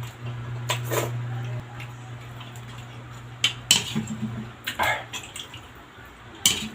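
Spoon and fork clinking and scraping against a plate and bowl during eating, a few sharp clicks spread over the seconds, over a low steady hum that drops out about a second and a half in.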